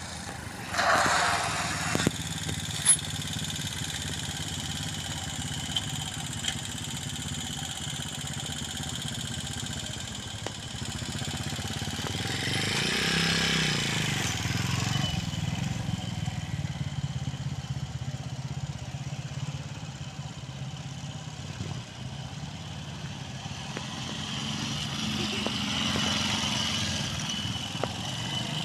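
Motorcycle engine running at low speed, a steady hum that grows louder and bends in pitch as the bike passes close about halfway through, then swells again near the end. A single sharp click sounds about three seconds in.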